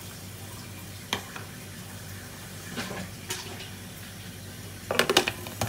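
Water pouring into an aluminium pressure cooker of frying beef bones, onions and tomatoes, over a steady low hum. There are a few light clicks, then a quick run of sharp metallic clatters near the end.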